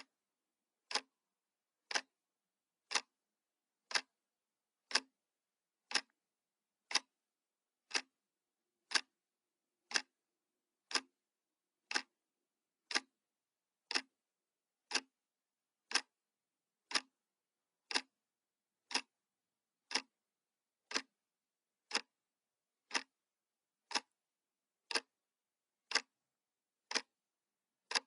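Clock ticking sound effect: a sharp single tick exactly once a second, with silence between ticks.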